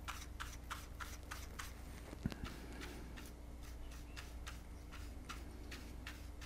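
Small brush flicking loose static grass off a model base sheet: faint, quick, even strokes about three a second, with one light knock about two seconds in.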